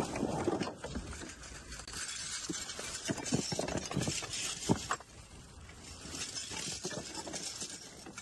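Irregular knocks and clinks of discarded objects being handled and shifted while rummaging through trash.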